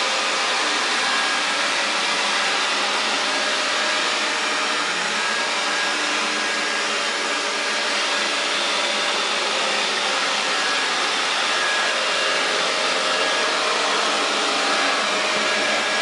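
Xiaomi Roborock S50 robot vacuum running: the steady whir of its suction fan, even throughout, with a few faint steady tones in it.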